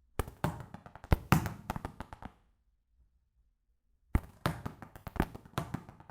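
A ball being kicked: two runs of quick, sharp thuds, each about two seconds long, with a pause of about two seconds between them.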